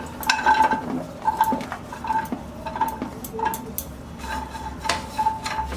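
A metal utensil scraping and clinking against a cooking pan while stirring, a run of irregular clicks, several of them leaving a brief ringing tone.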